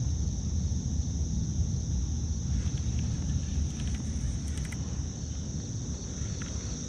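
Steady high-pitched chirring of an insect chorus over a constant low rumble, with a few faint ticks about halfway through.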